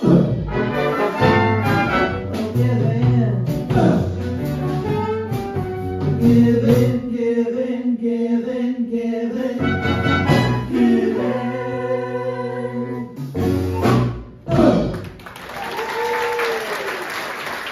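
Live big band with horns and female vocals playing the closing bars of a song, ending on a held chord and final hits about 14 seconds in. Audience applause breaks out right after and carries on to the end.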